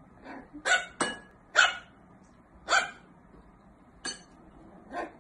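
Small white puppy yapping at a roly-poly tumbler toy: about seven short, sharp yaps, unevenly spaced, some fainter than others.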